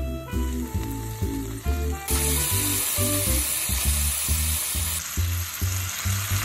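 Seafood and onion frying in olive oil in a pan, sizzling over background music with a steady beat; the sizzle turns much louder and fuller about two seconds in.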